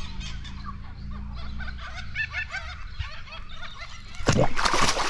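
Birds chirping and calling over a low steady hum. About four seconds in, a loud splash as a released Murray cod kicks away from the side of the kayak.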